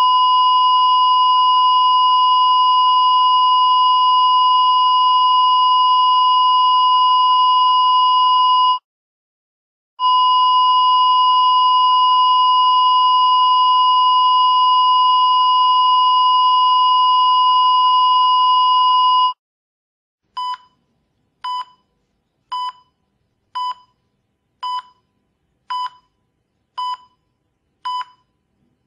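Electronic beep tone sound effect: a long steady high tone, a break of about a second, a second long tone, then short beeps of the same pitch about once a second.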